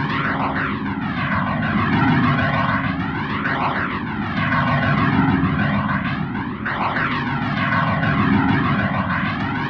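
A thick, steady wall of electronic noise run through a flanger effect. Its sweep rises and falls in a regular cycle about every three seconds, giving a jet-like rushing sound typical of noise or industrial music.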